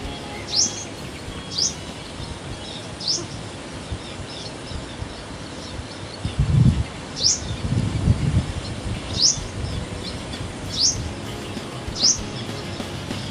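A bird repeating a short, high call that sweeps upward, once every one to two seconds. About halfway through, a low rumble of noise, like wind on the microphone, is louder than the calls for a couple of seconds.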